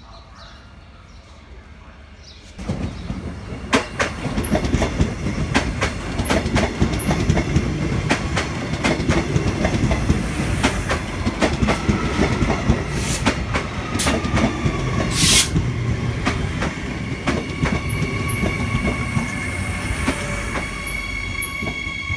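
Queensland Rail electric commuter train passing close by, arriving about two and a half seconds in. The wheels click rapidly over the track, with a whining tone from about halfway, a brief loud squeal about fifteen seconds in, and steady high tones near the end.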